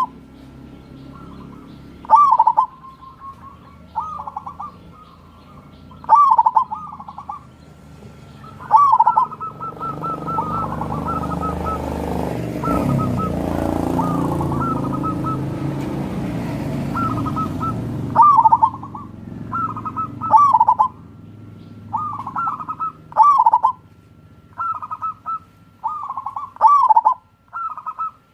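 Zebra dove (perkutut) singing: short rolling coo phrases repeated about every two seconds. A low rumbling noise swells up through the middle and fades away.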